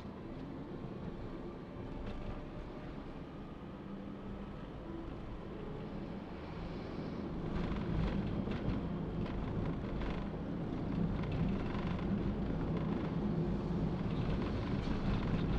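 Toyota Calya car on the move, heard from inside the cabin: a steady engine and tyre rumble that grows louder about halfway through. Faint knocks in the second half come from the uneven road surface.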